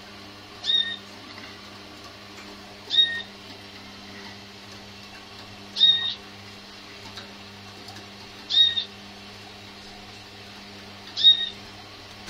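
Malinois (Waterslager) canary giving a short call five times, roughly every two and a half to three seconds, each a brief clear note, over a steady low hum.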